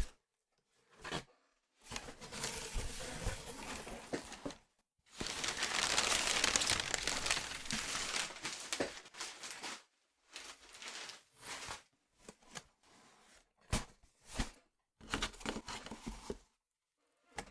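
Packaging being unwrapped by hand: stretches of crinkling and tearing, the loudest lasting from about five to nine seconds in, then shorter rustles and handling clicks.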